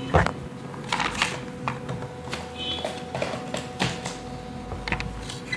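Irregular light clicks and taps of a glass electric kettle and its plastic handle and parts being handled and moved about on a table.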